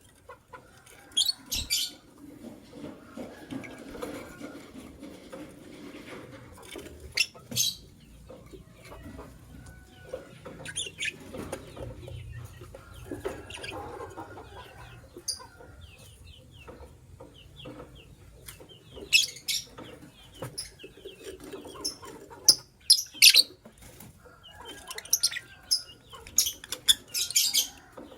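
Lovebirds chirping: short, sharp, high-pitched chirps in quick clusters every few seconds, busiest near the end, over a softer continuous lower background sound.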